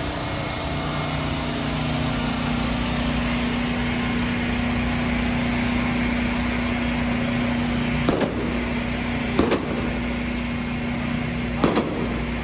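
Street noise under a steady engine hum, as from idling vehicles, with a few sharp cracks in the last third.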